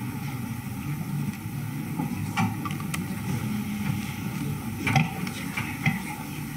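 Steady low rumble of room noise with a few sharp clicks and knocks, the loudest about five seconds in.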